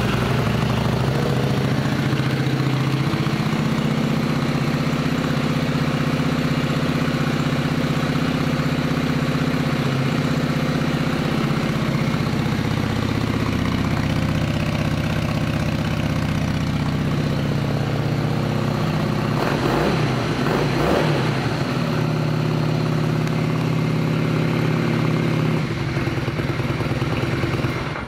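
Honda Shadow VLX 600's 583 cc V-twin idling steadily, just after being started. There is one brief rev about twenty seconds in, and the engine is shut off right at the end.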